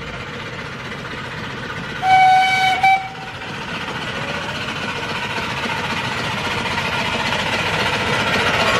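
Miniature 7¼-inch gauge steam locomotive sounding its whistle about two seconds in: one toot just under a second long with a short blip at its end. Then the train's running noise grows steadily louder as it draws near.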